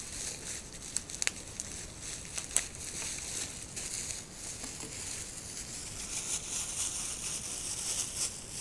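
Plastic bubble wrap and a plastic bag crinkling and rustling as a package is unwrapped by hand, with a few sharp crackles early on.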